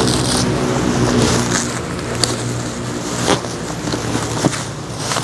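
Plastic bubble wrap rustling and crinkling as it is pulled out of a cardboard box, with a few sharp crackles, over a steady low hum.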